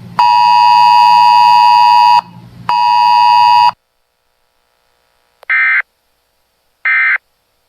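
Weather radio alert tones: a harsh, buzzy two-pitch alert tone sounds for about two seconds, breaks briefly, and sounds again for about a second. Then come two short warbling data bursts, each a fraction of a second long, about a second and a half apart: the digital end-of-message codes that close the broadcast alert.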